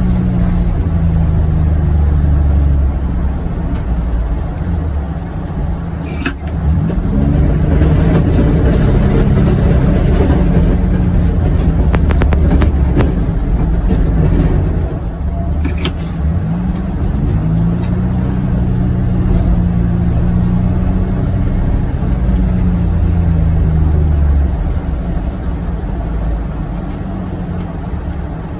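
John Deere Gator XUV835M utility vehicle's engine running steadily while plowing snow. There is a clunk about six seconds in and again about sixteen seconds in, each followed by the engine speeding up.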